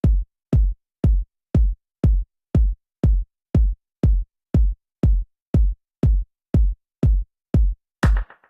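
Electronic dance music opening with a lone, deep drum-machine kick drum on a steady beat of about two hits a second; near the end a second, higher layer of synth sound joins the kicks.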